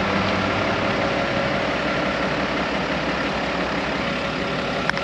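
An engine running steadily at idle, with a few sharp clicks near the end.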